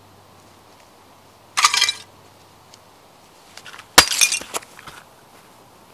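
Old china plates cracking and crunching under a Timberland boot as it stomps on them twice: once about one and a half seconds in, and harder about four seconds in, with shards clinking.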